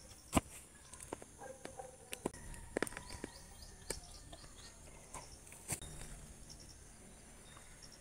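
Scattered soft knocks and sharp clicks of a bar and hands loosening soil around a young tree's roots, with faint short bird chirps in the background.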